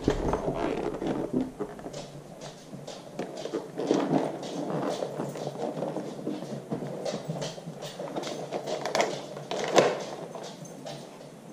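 Rustling, scraping and scattered small clicks of a motorcycle helmet being pulled on over the head, its padding rubbing and the chin strap being adjusted.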